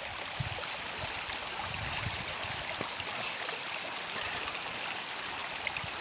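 Stream of very cold water flowing steadily, with a few faint clicks.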